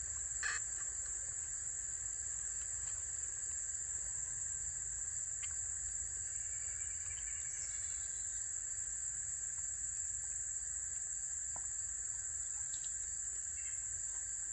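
Insects droning in summer woodland: one steady, high-pitched buzz that never lets up, with a few faint clicks on top.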